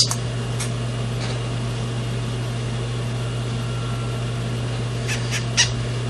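Steady low electrical hum with background hiss, and a few faint brief ticks, three of them close together about five seconds in.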